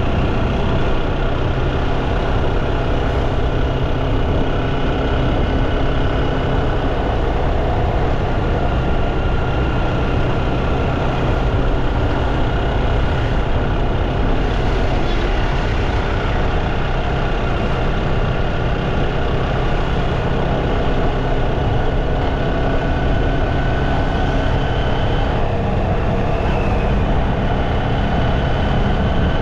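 Steady engine and road traffic noise heard from a moving bike on a city street, with a faint whine that drifts slowly in pitch.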